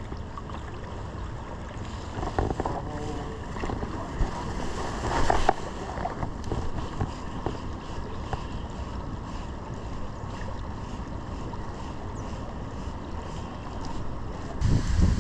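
Steady rush of moving river water with wind buffeting the microphone, a few faint voices in the background, and a brief louder swish about five seconds in.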